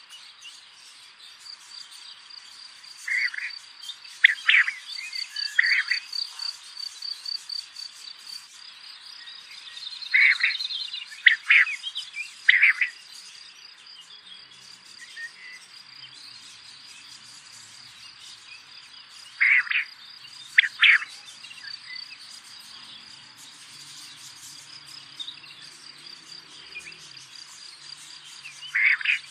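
Outdoor ambience of insects keeping up a steady, high pulsing trill, with loud short bird calls in groups of two or three that come back several times.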